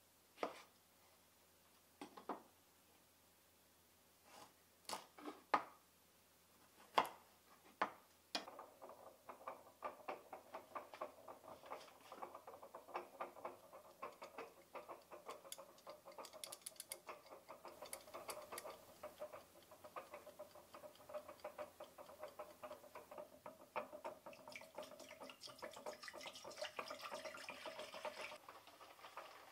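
A few scattered clicks and knocks, then a Dulton Round Timer, a wind-up mechanical kitchen timer, ticking rapidly and steadily. Near the end water pours into an enamel pot.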